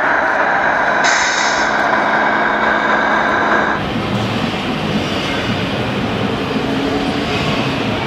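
Steady, loud din of an indoor RC model show hall, with no speech standing out. It changes abruptly about four seconds in.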